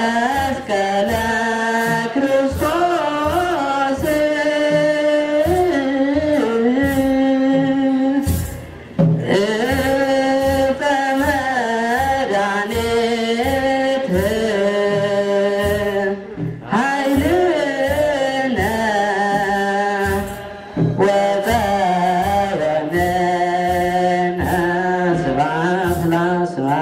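Ethiopian Orthodox wereb hymn sung by a mixed choir, in long held phrases, over a steady beat of sistrums (tsenatsel) and a kebero drum. The singing breaks off briefly between phrases about eight and twenty seconds in.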